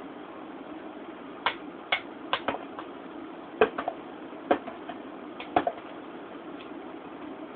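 Light metallic clicks and clinks of lead-casting gear being handled: about a dozen short, sharp knocks that ring briefly, falling irregularly through the middle few seconds over a steady background hiss.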